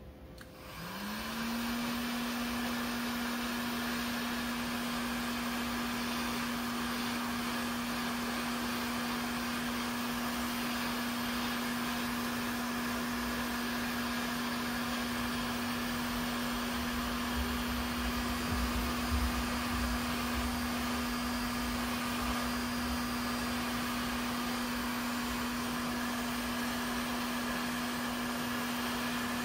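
Electric heat gun switched on: its fan motor spins up, a hum rising in pitch over the first second or so, then it runs steadily with a constant hum and rushing air. It is blowing hot air onto a crankshaft ball bearing held in pliers.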